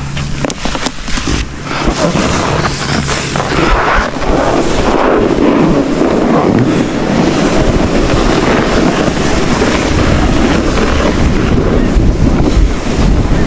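Wind rushing over the camera microphone while a snowboard slides downhill, the board scraping over the snow. A few scattered knocks in the first two seconds, then a steady, rumbling rush.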